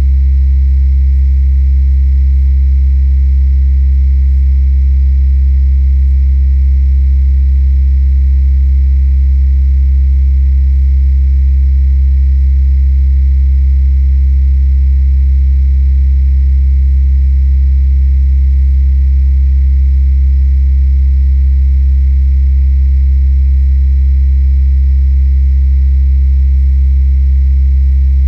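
Steady deep electrical hum, heaviest in the bass, with a row of fainter higher tones over it and no change in level. The recordist takes it for hum from the electric grid's power lines; it is played back with the bass boosted and the treble cut.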